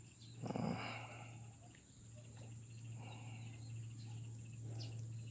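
Faint steady chirring of insects over a low steady hum, with one brief louder noise about half a second in while a tilapia is being unhooked by hand.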